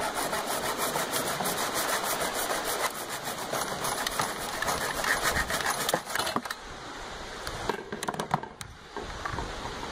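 Hacksaw cutting through a 50 mm PVC pipe held in a bench vise, in rapid back-and-forth rasping strokes. The sawing stops about six seconds in, followed by a few scattered clicks and knocks.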